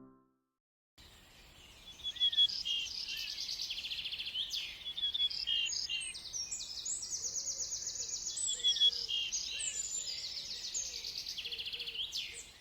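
Birds singing: a dense chorus of rapid, high trills and chirps, starting about a second in and running on without a break, with a fainter, lower call under it.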